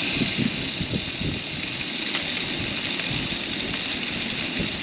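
Burgers frying in oil in a pan on a gas camping stove, sizzling with a steady hiss and small crackles.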